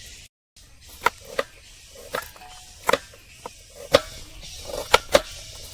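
Hard-boiled eggs being cracked for peeling: sharp taps of eggshells knocked against a hard surface, spaced irregularly about a second apart.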